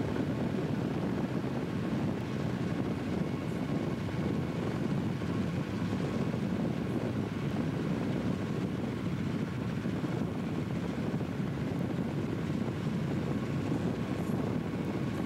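Steady, even rumble of moving vehicles: a Southern Pacific diesel locomotive under way, heard from a road vehicle pacing it, with road and wind noise mixed in.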